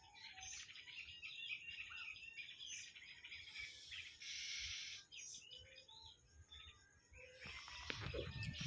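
Birds chirping and calling in short, repeated notes. Low knocking and handling noises start near the end.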